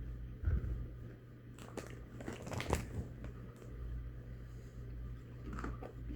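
Crunching and chewing on a Doritos tortilla chip close to the microphone, in irregular crackly bites that cluster a couple of seconds in and again near the end, over a steady low hum.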